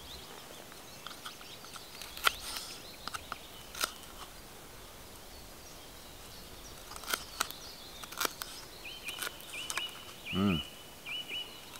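Kitchen knife cutting a red bell pepper into strips on a wooden board, each stroke giving a sharp click as the blade meets the wood, spaced irregularly. Near the end a bird calls in a quick series of short repeated chirps.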